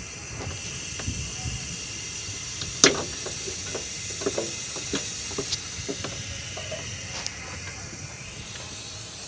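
Plastic wiring-harness connectors being unplugged by hand from a manlifter truck's main CPU box: scattered small clicks and rattles, the loudest about three seconds in, over a steady hiss.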